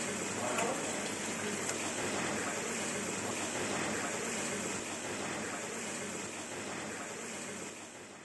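Water jet pouring and splashing steadily into a live-seafood holding tank, fading out near the end.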